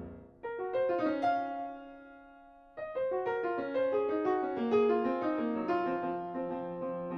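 Piano music: a short phrase of notes that rings out and fades, then a busier run of notes from about three seconds in, over a held low note near the end.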